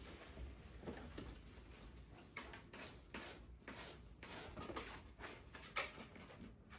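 Kittens playing: faint, irregular scuffles and light taps of paws and claws on fabric and cardboard, with one sharper tap a little before the end.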